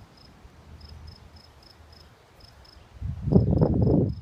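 A rough rustling, tearing sound about three seconds in, lasting about a second, as a weed (a dandelion) is pulled out of the soil by its roots. Behind it, an insect chirps steadily in short, high, even chirps, about three or four a second.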